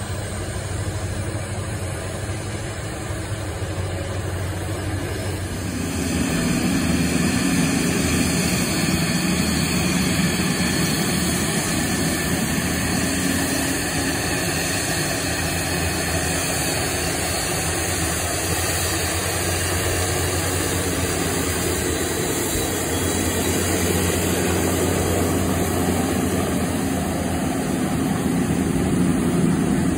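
Piaggio P.180 Avanti's twin Pratt & Whitney PT6A pusher turboprops running at taxi power, a steady engine and propeller drone that gets louder about six seconds in.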